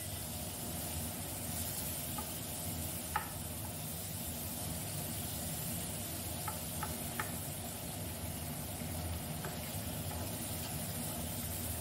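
Chopped onion, tomato and ginger sizzling as they sauté in oil in a nonstick frying pan, stirred with a wooden spatula that knocks against the pan a few times.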